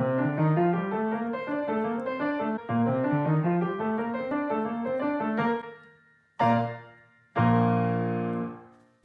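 Solo piano music: a flowing run of notes for about five and a half seconds, then two separate chords, the second ringing out and fading away near the end.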